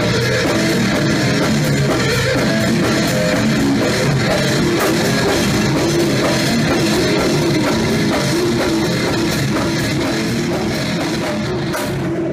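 Brutal death metal band playing live at full volume: fast drum kit, downtuned electric guitar and bass, with growled vocals. The band stops abruptly near the end, leaving a faint ringing tone.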